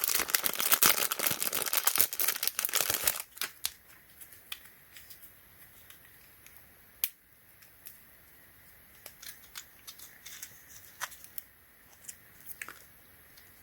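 Packaging of a solder wick spool being torn and crinkled open for about three seconds, then scattered light clicks and taps as the spool is handled.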